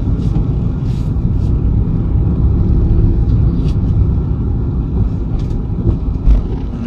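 Car road and engine rumble heard from inside the cabin while driving slowly on a wet road, with a few faint clicks and a low thump about six seconds in.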